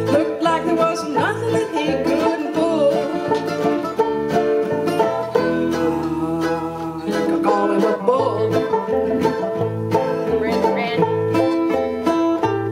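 Small acoustic string band playing a folk song: mandolins and acoustic guitar strumming and picking a steady beat. A woman sings a line near the start and again a little past the middle.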